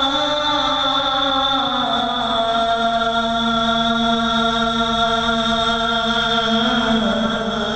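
A man singing a sholawat, an Islamic devotional song, into a microphone over a sound system, drawing out long held notes that change pitch about two seconds in and again near the end.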